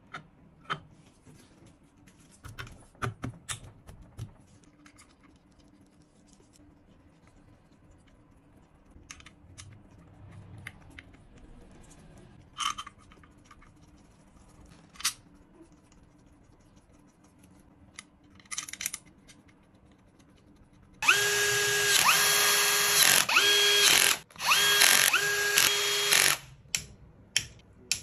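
Scattered clicks and knocks of parts and tools being handled, then a power tool's motor running in four short bursts over about five seconds, a steady whine within each burst.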